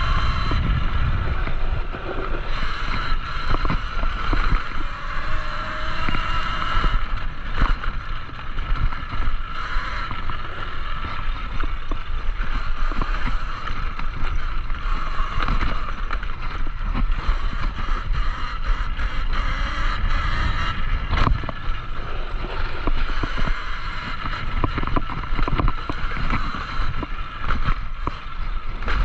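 Talaria Sting electric dirt bike being ridden on a rough dirt trail: the electric motor's whine shifting in pitch with speed over a steady rumble of wind on the microphone, with the bike knocking and rattling over bumps, one sharp knock about three-quarters of the way through.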